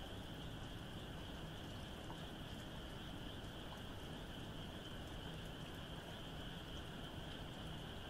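Distant frog chorus, a steady high-pitched trill, over light rain falling.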